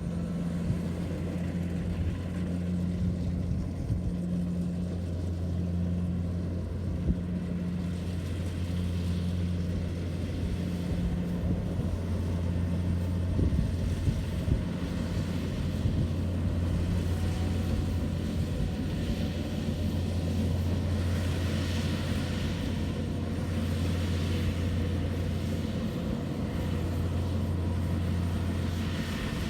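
Rice combine harvester running steadily, its engine giving a constant low drone, with a rushing hiss over it that swells a little past the middle.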